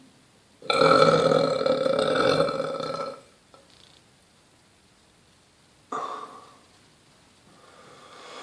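A person belching: one long, pitched burp lasting about two and a half seconds, then a shorter burp about six seconds in that starts sharply and fades.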